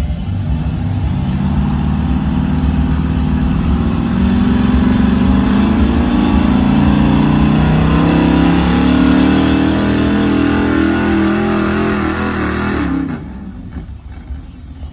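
1976 Ford Highboy pickup's gas engine pulling a weight-transfer sled at full throttle, its note rising steadily in pitch as it drags the sled down the track. About thirteen seconds in the engine drops off abruptly as the throttle comes off at the end of the pull.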